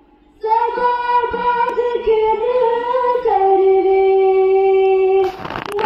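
A student's single high voice chanting a naat, a devotional poem in praise of the Prophet, in long held notes that waver slightly and step down in pitch about halfway through. Near the end the voice breaks off for a short rush of noise before it goes on.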